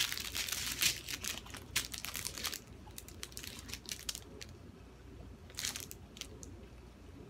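Small plastic bags of diamond painting drills crinkling as they are handled and laid out in a row: dense crackling for the first two or three seconds, then a few scattered crinkles.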